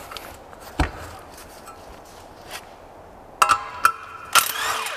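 Metal tools and engine parts clinking and knocking on a workbench during a small-engine strip-down: a knock about a second in, then a cluster of sharp metallic clicks and rings. Near the end a cordless impact driver spins up briefly on a 10 mm bolt.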